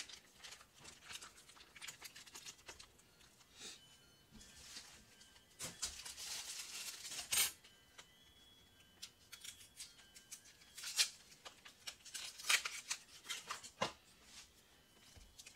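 Foil wrappers of cream cheese blocks crinkling and tearing in irregular bursts as they are peeled open and the cheese is scraped off the foil.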